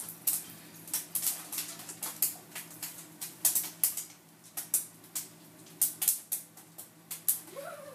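Popcorn kernels popping: sharp, irregular pops, a few a second.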